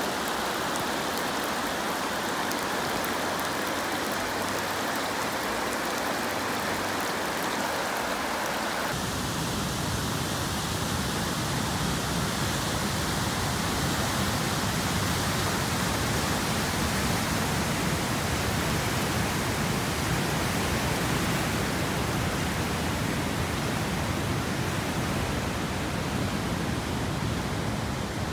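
Rushing floodwater pouring across a road and through woods, a steady rushing noise. About nine seconds in it changes abruptly to a deeper, rumbling rush.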